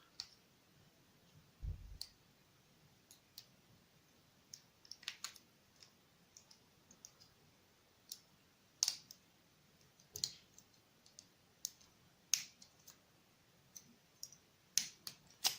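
A lock pick clicking irregularly against the pins of a small Tri Circle 264 pin-tumbler padlock held under light tension: a scatter of sharp, separate clicks, with a low thump about two seconds in.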